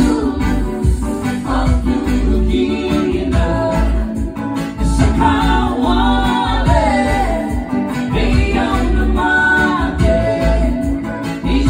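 A man singing a song in Fijian with a live band: the sung melody wavers over guitar and a heavy, pulsing bass.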